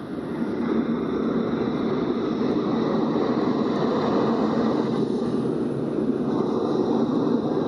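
Steady rushing noise aboard a catamaran under way, wind and water against the hull, swelling over the first second and then holding.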